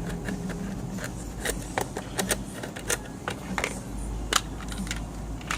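Irregular small clicks and knocks of plastic parts being handled and pushed back together while a plug-in power meter is reassembled, over a low steady hum.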